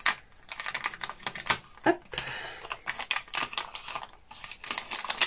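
Small kraft-paper packet being opened and handled by hand: a run of crisp paper crinkles and clicks, with a longer rustle about two seconds in.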